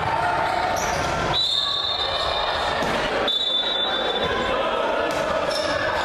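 Basketball game sounds echoing in an indoor arena: a ball bouncing on the hardwood court under a steady murmur of crowd and players' voices. Two high, held tones cut in, one about a second and a half in and a shorter one about halfway through.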